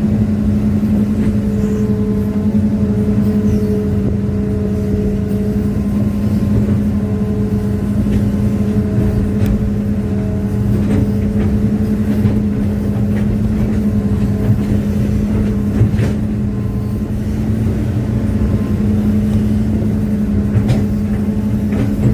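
Excavator's diesel engine running steadily with a low, even drone, a fainter higher whine coming and going, and a few light clicks.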